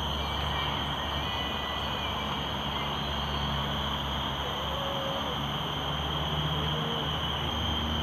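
Steady outdoor ambience: a constant high insect drone over a low hum of distant traffic, with a few faint, brief calls.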